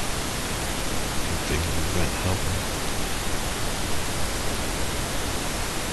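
Steady, even hiss of background noise, with a faint voice murmuring briefly about one and a half to two and a half seconds in.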